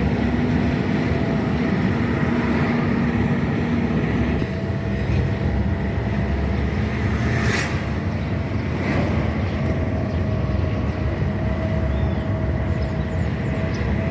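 A car running along the road, heard as a steady low engine and road rumble with a faint steady hum whose pitch shifts about four seconds in. There are two brief hissing sounds near the middle.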